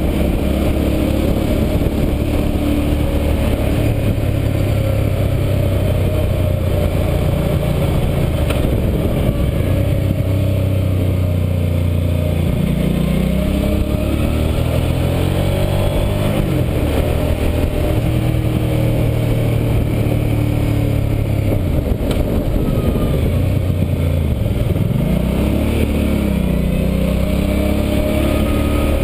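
Hyosung Aquila GV650i V-twin motorcycle engine running under way, heard from on board. Its pitch falls and rises several times as the throttle is closed and opened through the bends, dropping low a little past halfway and again about five seconds before the end, then climbing back up.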